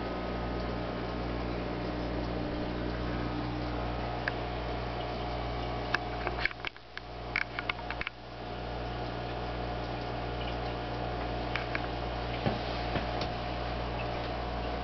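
Steady electrical hum of running aquarium equipment. About halfway through it briefly drops out amid a few sharp clicks.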